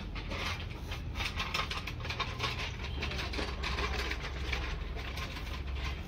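Rapid, irregular metallic clicking and clattering from hand tools and engine parts being worked on an engine block, over a steady low hum.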